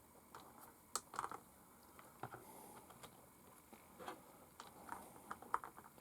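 Irregular small clicks and taps from handling parts: brass wheel weights being worked onto a small RC crawler wheel.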